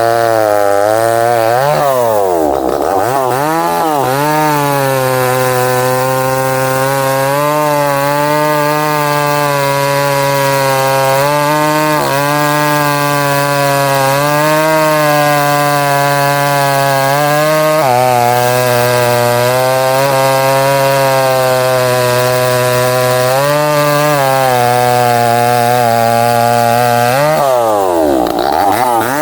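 Chainsaw engine running at high revs while cutting through a thick tree trunk. Its pitch dips and climbs back about two seconds in and again near the end, with smaller dips in between.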